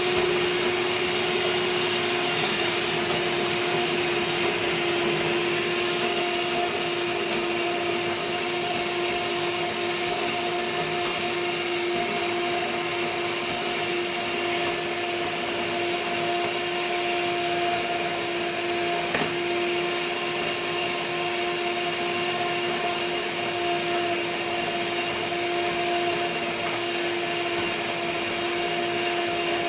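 Electric hand mixer running steadily, beating pancake batter: an even, unbroken motor whine.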